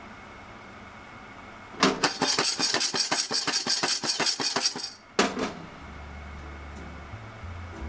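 Coffee beans rattling fast inside a lidded saucepan as it is shaken over a gas burner, for about three seconds, then a clatter as the pan is set back down on the stove grate. The beans are partway through a pan roast, before first crack.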